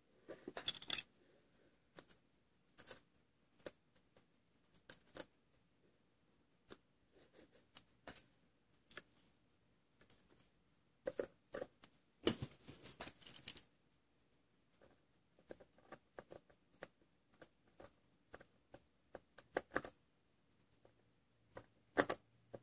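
Irregular small metallic clicks and taps of tweezers and tiny brass parts of a verge fusee pocket-watch movement being handled on a workbench, with two short flurries of rattling, just after the start and about twelve seconds in.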